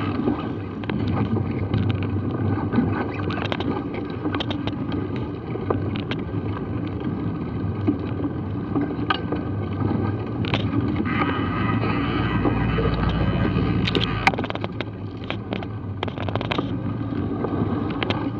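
Mountain bike riding over a rough, muddy dirt track, heard from a bike-mounted action camera: steady wind noise on the microphone and tyre rumble, with frequent clicks and rattles from the bike over bumps. A deeper low rumble rises for a couple of seconds about two-thirds of the way through.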